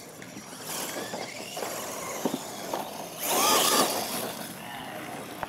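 Radio-controlled monster trucks racing on dirt: their motors whine up and down in pitch over the scrabble of tyres on loose dirt, loudest about three and a half seconds in.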